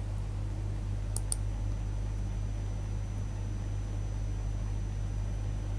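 Two quick computer mouse clicks about a second in, over a steady low hum.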